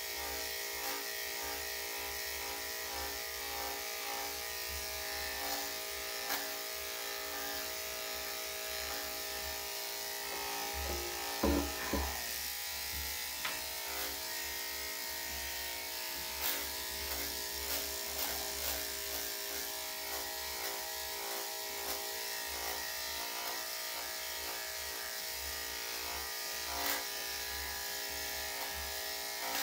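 Electric dog grooming clippers with a #7 blade running steadily as they shave a Shih Tzu's body coat, a continuous motor buzz with a few light clicks. About eleven seconds in there is a brief louder sound with a sliding pitch.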